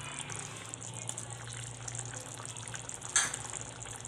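Thin gavar bean curry simmering in a steel pot: a steady fine bubbling and hiss over a low hum, with one brief sharp sound about three seconds in.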